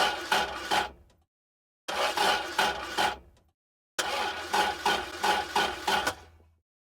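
Car engine being cranked over by its starter in three short attempts, with a rhythmic chug about three times a second, the last attempt the longest, and the engine never catching: a cold-weather no-start.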